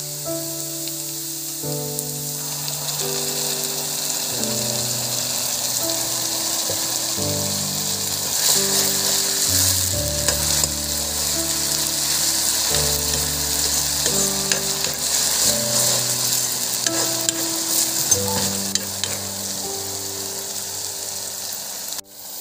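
Onions and vegetable strips sizzling in hot oil in a wok, stirred and scraped with a metal spatula, over soft background music.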